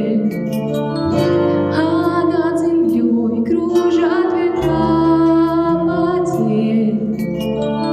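Slow song with a female voice singing over sustained instrumental accompaniment and a bass line.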